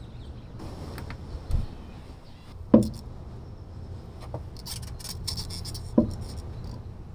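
Hands at work on small parts and wiring: light rubbing and rustling, with two sharp knocks about three seconds apart and a dull thump before them.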